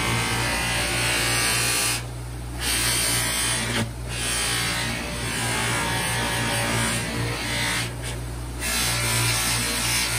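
Bench buffer running with a cloth buffing wheel, its motor humming steadily while a stabilized-wood knife handle is pressed against the spinning wheel with a steady hiss. The hiss drops away three times, about two, four and eight seconds in, as the handle is briefly lifted off.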